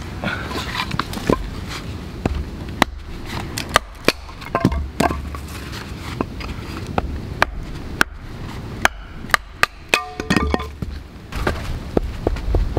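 Axe splitting softwood firewood on a chopping block: a dozen or so sharp chopping strikes at irregular spacing, the conifer wood splitting easily.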